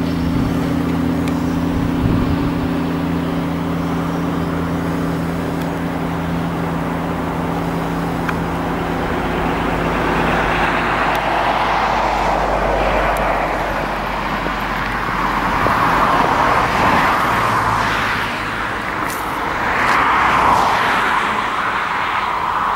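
Road traffic: a steady engine hum for the first half, then cars passing with a swelling and fading tyre rush, loudest about two thirds of the way through and again near the end.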